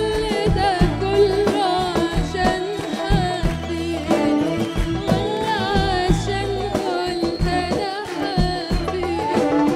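A woman singing an Arabic song live with a band, drums keeping a steady beat under her voice.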